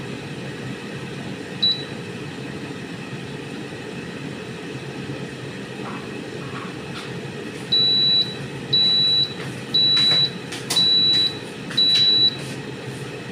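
Air fryer running with a steady fan hum, giving one short high beep, then a series of five beeps about one a second near the end: the timer signalling that cooking is done.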